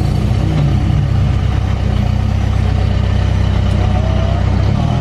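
Heavy diesel engine running steadily at idle; its low note shifts slightly near the end.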